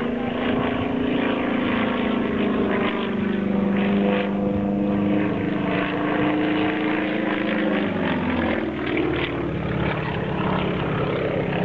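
Single-engine aerobatic propeller plane flying overhead, its engine running with a steady droning note that falls in pitch about eight seconds in.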